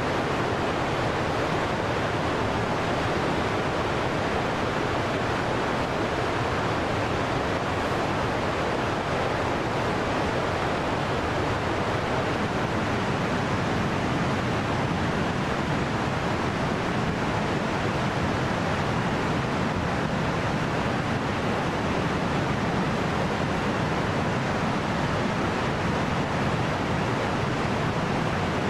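Steady rushing of a fast mountain river running white over rocks, an even, unbroken water noise.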